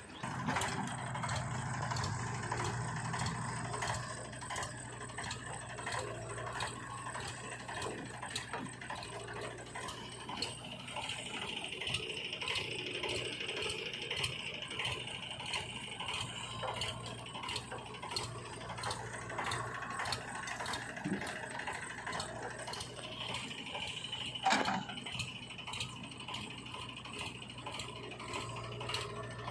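Backhoe loader at work: a steady low engine hum under continual clattering and ticking, with a high whine that comes in for several seconds twice.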